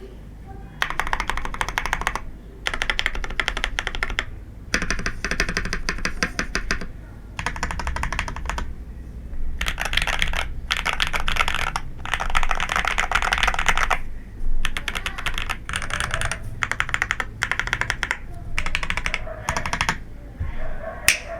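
Akko 3098B mechanical keyboard fitted with Jelly Strawberry V3 switches being typed on quickly: runs of rapid keystroke clacks about one to two seconds long, broken by short pauses.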